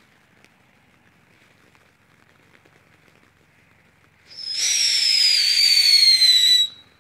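Howling Coyote firework fountain spraying sparks with a faint crackle. About four seconds in, its loud whistle starts high and slides slowly down in pitch for about two and a half seconds, then cuts off suddenly.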